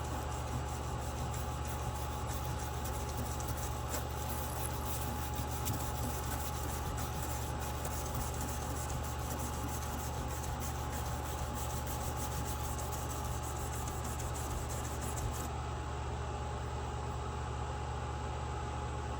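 A steady low mechanical hum, even and unbroken, with a thin steady whine above it.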